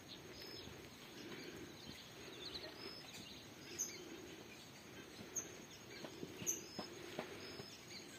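Faint outdoor ambience with distant birds chirping, and a few soft clicks in the second half.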